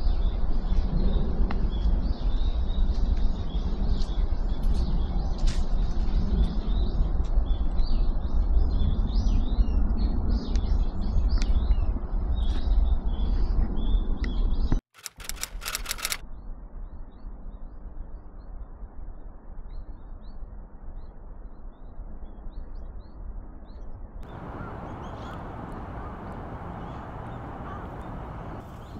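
Many small birds chirping in short high notes over a steady low rumble. About halfway through, the sound cuts off abruptly and drops to a much quieter background, with only faint chirps going on.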